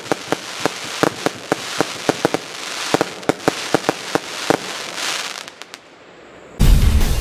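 Dark Gold Box consumer fireworks cake firing its final shots: a rapid string of sharp bangs with crackling hiss from the bursting stars, dying away about five and a half seconds in. Loud heavy rock music cuts in suddenly near the end.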